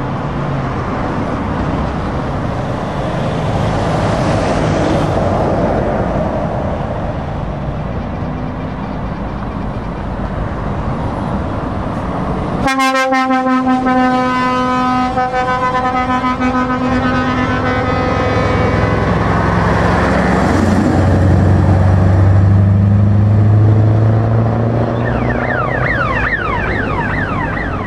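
Heavy trucks driving past, with a truck's air horn sounding one steady note about halfway through for roughly four seconds. Then the Scania 143M V8 470's big V8 diesel grows louder as the truck comes by.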